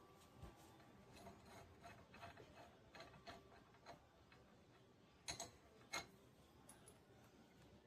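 Faint, irregular small metal clicks and ticks from hand tools working a loosened bolt out of a cutter bar, with two sharper clicks a little past halfway.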